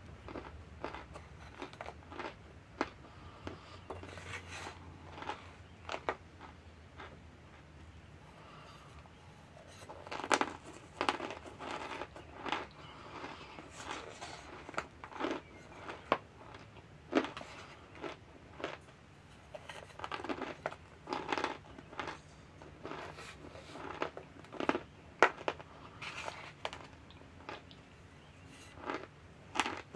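Raw cornstarch being chewed close to the microphone: an irregular run of sharp crunches in clusters, with short pauses between mouthfuls.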